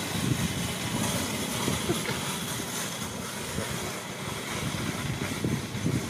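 Steady outdoor background noise with a low, uneven rumble.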